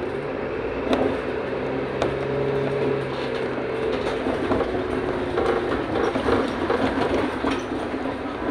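Inside a Mercedes-Benz Citaro O530 city bus on the move: the diesel engine hums steadily under road noise for the first few seconds. From about halfway on, the cabin is full of short rattles and clicks from the body and fittings, the sign of a worn, neglected bus nearly 15 years old that shakes all over.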